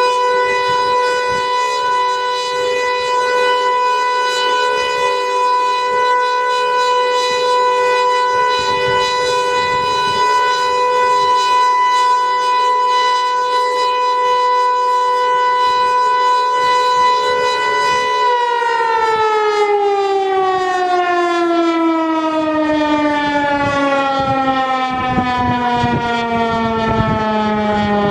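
Outdoor civil-defense warning siren under test, sounding a loud steady tone of two close pitches. About eighteen seconds in it begins to wind down, its pitch falling slowly and steadily.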